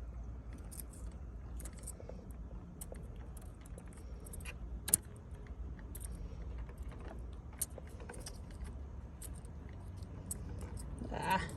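Scattered light clicks and rattles of hands handling a removed car tail light assembly and its plastic bulb sockets, with one sharper click about five seconds in, over a steady low rumble.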